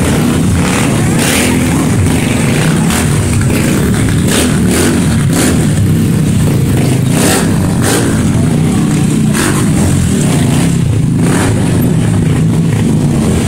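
Several small motorcycles running and revving loudly as riders pull wheelies.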